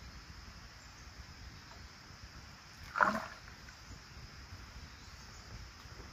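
Liquid poured from a cut bamboo tube into a small ceramic bowl. A short, loud splash comes about three seconds in, as the last of it runs out of the tube.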